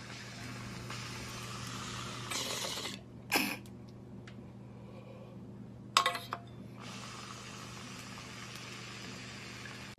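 Glass water bong being drawn through: a steady bubbling rush of air through the water for about three seconds, a short sharp knock or clink, a quieter pause, a few glass clicks around the six-second mark, then a second long draw with the same bubbling rush.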